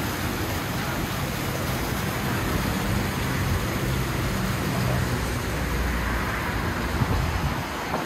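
Steady rushing and bubbling of water from the aerators in live-seafood holding tanks, with a low rumble underneath.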